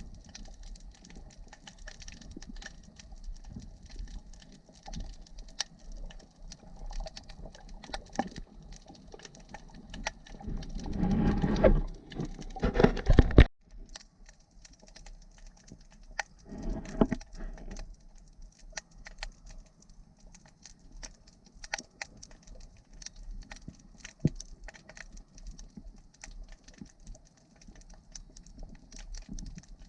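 Underwater crackle of many small sharp clicks. A louder rushing, bubbly noise builds from about 10 seconds in and cuts off suddenly near 13.5 seconds, with a shorter one near 17 seconds.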